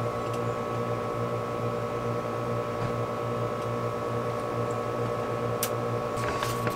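Steady mechanical hum made of several fixed tones, with one sharp click about five and a half seconds in.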